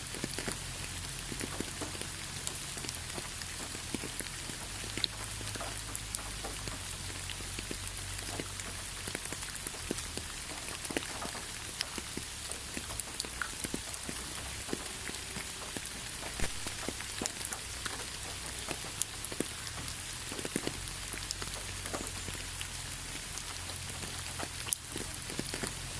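Steady rain falling, with many separate drops ticking and pattering on surfaces over an even hiss, and a low steady rumble underneath.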